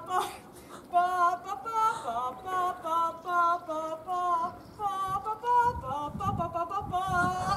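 A woman singing a slow melody with vibrato, held notes moving from pitch to pitch.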